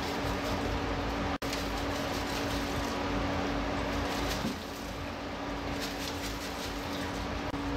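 A steady mechanical hum with a rushing noise and one constant tone, broken once by a sudden split-second cut about a second and a half in. The noise eases slightly after about four and a half seconds.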